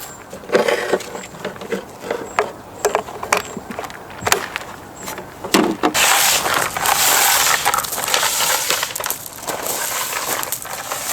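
Crunching and rustling: scattered sharp snaps and crunches for about six seconds, then a dense, continuous rustling.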